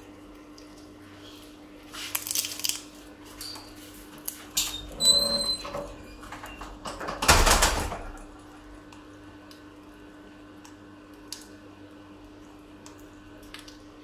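African grey parrot working at a nut held in beak and foot: scraping and crunching bursts about two seconds in, again around five seconds, and loudest around seven seconds. A brief high squeak comes near the middle, and a steady low hum runs underneath.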